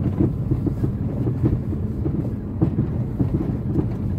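A car driving, heard from inside the cabin: a steady low rumble of engine and tyres.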